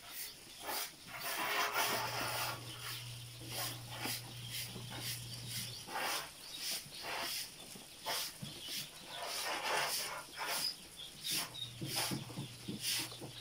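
A large flock of ducklings peeping, many short high calls overlapping continuously. A low steady hum comes in about two seconds in, stops around six seconds, and returns near the end.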